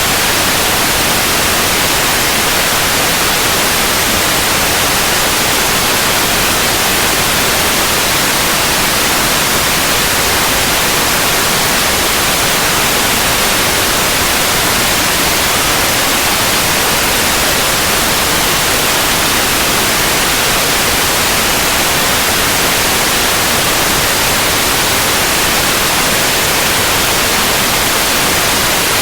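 Steady synthetic white noise: an even, unchanging hiss across the whole range, strongest in the upper frequencies.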